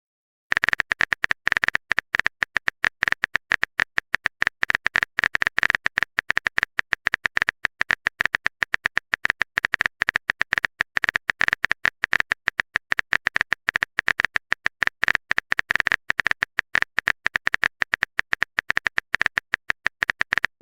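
Rapid, irregular clicking like keyboard typing: a typing sound effect of several sharp clicks a second, starting about half a second in.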